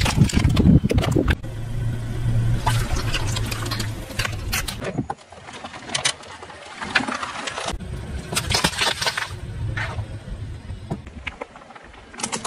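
Car tyre rolling over and crushing small objects, with sharp cracking and crunching, loudest in the first second and a half. A car engine runs low and steady underneath. The sound changes abruptly several times between separate crushing clips.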